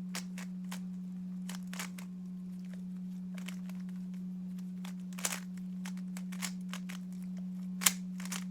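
3x3 Rubik's cube being turned quickly by hand: quick, irregular plastic clicks of the layers snapping round, a few sharper ones about five and eight seconds in. A steady low hum runs underneath.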